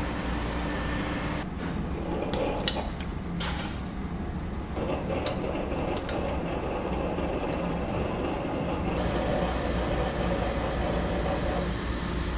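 A steady mechanical hum with low droning tones, with a few sharp clicks and clinks about two to three seconds in and again around five to six seconds.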